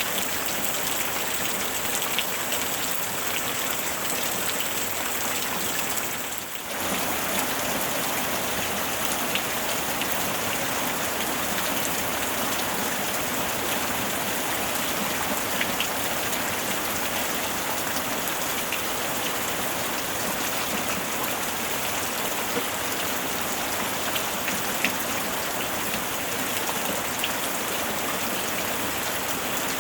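Steady rain falling, a dense even hiss of drops with occasional sharper drop ticks. The sound dips briefly about six and a half seconds in.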